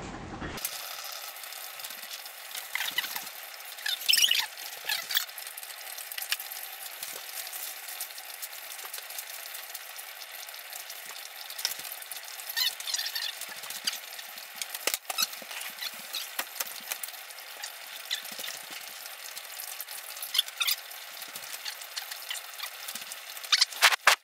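Metal spoon stirring, clinking and scraping in a stainless steel saucepan in bursts, over a steady hiss of pots boiling on an electric stovetop.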